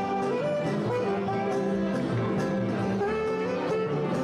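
Background music: a jazz tune with a horn carrying the melody in held notes that step up and down over a steady accompaniment.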